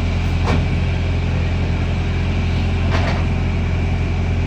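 Interior sound of a New Routemaster hybrid double-decker bus under way, heard from the rear of the upper deck: the rear-mounted diesel engine runs with a steady low drone, and two brief rattles come from the bus about half a second in and near three seconds.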